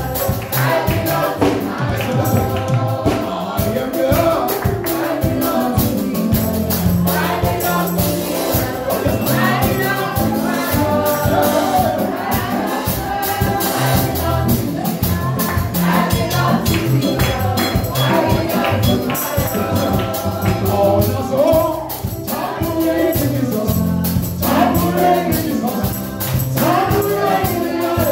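Live gospel praise music: voices singing over a band, with steady beating percussion.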